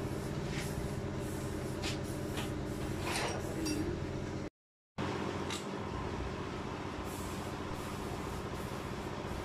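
Metal lathe running with a steady hum. In the first half, a few short metallic knocks and scrapes come as a large twist drill is pushed home in the tailstock chuck; after a brief break the lathe runs on with the spinning chuck as the drill bores into the workpiece.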